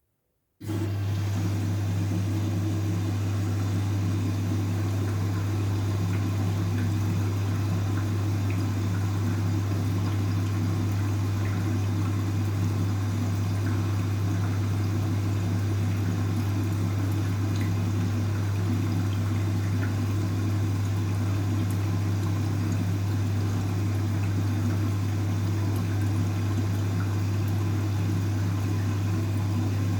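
Washing machine running on a load of blankets, with water rushing and a steady low hum. It starts abruptly about half a second in.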